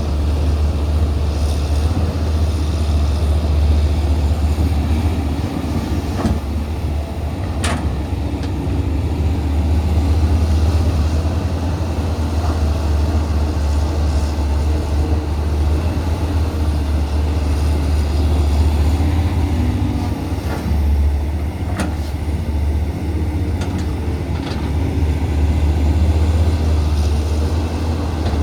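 CAT 320CL hydraulic excavator's diesel engine running steadily while digging, a strong low drone whose loudness rises and falls a little, with a few sharp knocks now and then.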